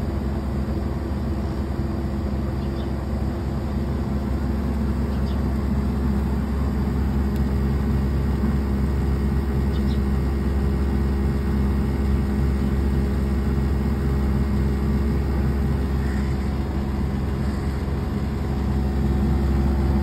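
Samsung DC inverter air conditioner's outdoor unit running during R32 refrigerant charging: a steady hum from the compressor and fan with several steady low tones, swelling slightly louder a few seconds in and near the end.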